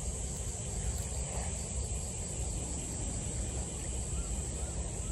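Steady outdoor ambience: a continuous high-pitched insect chorus over a low, uneven rumble.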